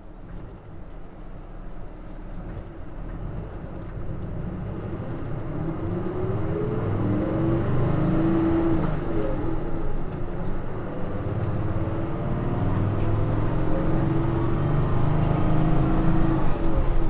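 Nissan Diesel JP city bus's diesel engine heard from on board, getting louder as the bus pulls away and accelerates. The engine note rises, drops back about ten seconds in at a gear change, then rises again under hard throttle.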